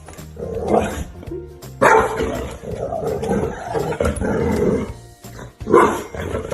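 A dog barking in several outbursts over background music, with a long run of barking from about two seconds in to about five seconds.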